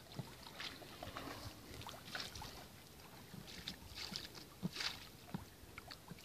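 Light, irregular splashes and drips of a paddle working an inflatable dinghy through the water.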